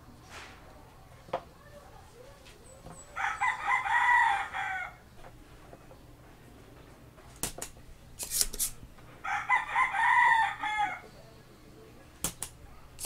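A rooster crowing twice, each crow about two seconds long, some six seconds apart. Sharp clicks come in between and near the end.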